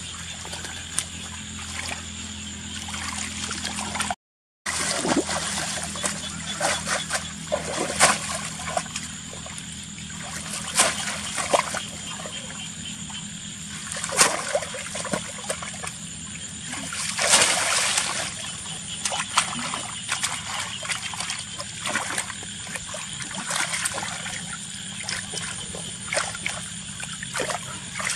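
Water splashing and trickling, with irregular sharper splashes; the loudest come about 8, 11, 14 and 17 seconds in.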